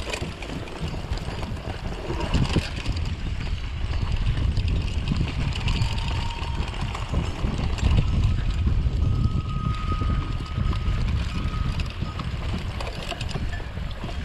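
Wind buffeting an action camera's microphone as a mountain bike rolls over a rough track, a steady low rumble with knocks and rattles from the bike.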